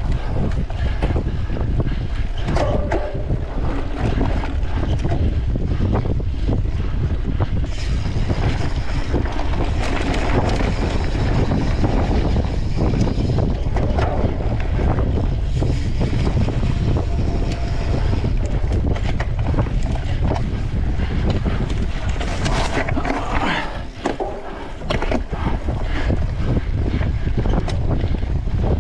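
Wind rushing over the microphone of a camera carried on a mountain bike racing along a forest trail, with a constant rumble and the bike's rattles and knocks over rough ground.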